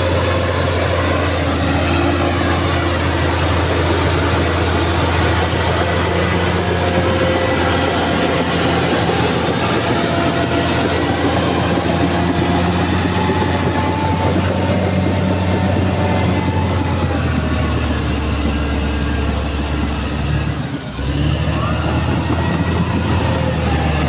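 Caterpillar D6R XL crawler bulldozer's diesel engine running steadily under load, with a high whine from the machine riding over it. The sound dips briefly for a moment near the end.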